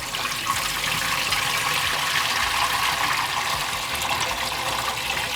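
Water from a dehumidifier's collection tank, filled in one night of running, being poured out in a steady stream.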